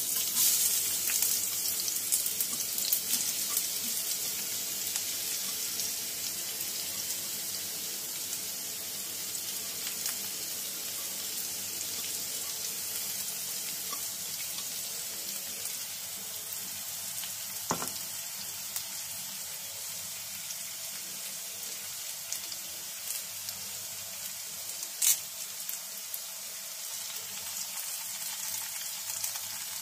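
Sliced onions, green chillies, garlic and curry leaves sizzling in hot oil in a non-stick kadai. The sizzle starts loud as they go into the oil and settles to a steady frying hiss, with two brief sharp clicks along the way.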